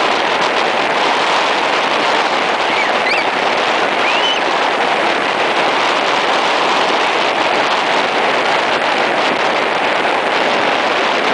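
Strong wind buffeting the microphone over the steady wash of rough surf breaking on the beach, with a couple of brief faint high squeaks about three to four seconds in.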